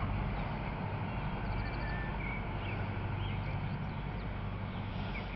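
Steady low rumble and hiss of outdoor ambience, with short high bird chirps scattered through it.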